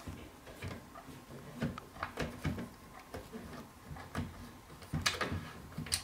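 Light clicks and knocks of a hex key and cap head screws being started into a wooden chair frame, irregular and loudest a little after five seconds in.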